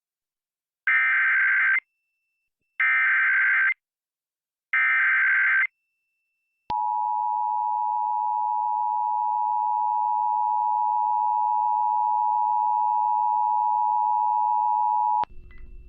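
Emergency Alert System tones for an AMBER Alert (child abduction emergency). First come three identical bursts of the SAME digital header, each about a second long with about a second between them, encoding the alert. Then the two-tone attention signal sounds steadily for about eight and a half seconds and cuts off abruptly.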